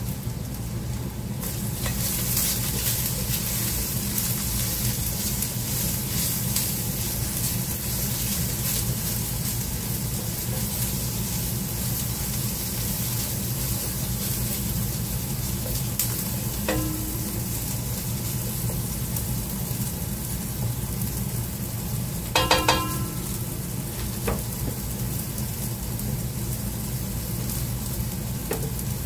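Food frying in a pan, sizzling steadily, with the scrape of a spatula as it is stirred now and then. A steady low hum runs underneath.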